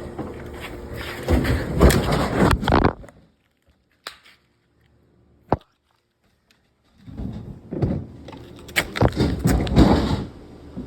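Irregular knocks and thuds over rough rustling noise. They break off after about three seconds into near silence, with two sharp clicks in the gap, then start again about seven seconds in.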